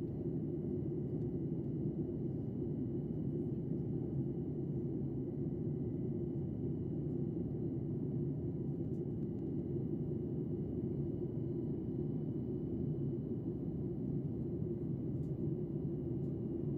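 Steady low rush of cabin noise inside an airliner in flight, the engines and airflow heard through the cabin, with a faint steady high tone above it.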